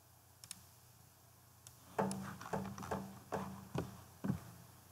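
Faint plucked notes in an uneven run of about six, starting about two seconds in, each a sharp attack with a short pitched ring. They follow two soft clicks about half a second in.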